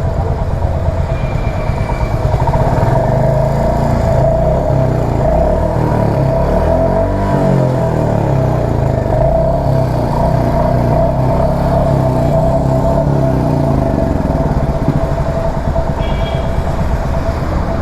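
Royal Enfield Hunter 350's single-cylinder engine running steadily, with the revs rising and falling around the middle. It is being checked for a 'tr' noise that began after its third service, which the mechanic puts down to the sump loosened at the oil change.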